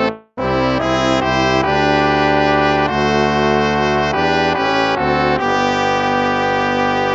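Instrumental hymn played on brass instruments: slow, sustained chords that change every second or so, with a brief break just after the start.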